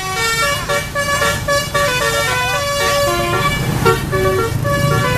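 A bus's telolet basuri horn, a multi-tone musical horn, playing a quick melody of held notes that step up and down in pitch every fraction of a second, over a low steady rumble.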